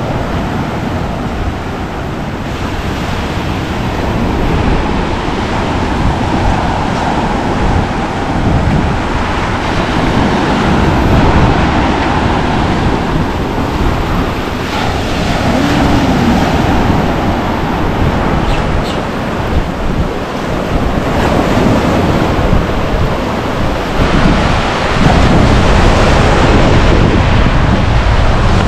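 Surf breaking on the shore, with wind buffeting the microphone; a little louder in the last few seconds.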